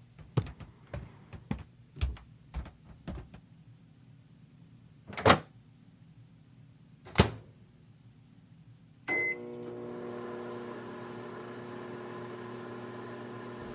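A run of light clicks, then two loud door thumps, then a short beep about nine seconds in as a microwave oven starts running with a steady hum.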